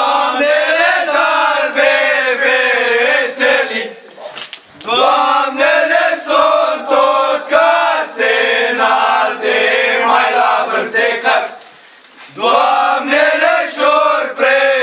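Group of young men singing an old Romanian antiphonal Christmas carol (colindă) unaccompanied, in loud male chant-like unison. Three sung phrases, with short breaks for breath about 4 seconds and 12 seconds in.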